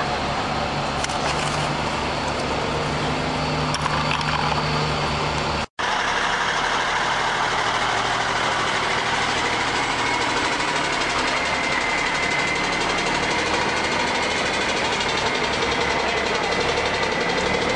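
A motor vehicle's engine running steadily, broken by an abrupt cut about six seconds in, after which steady engine noise carries on.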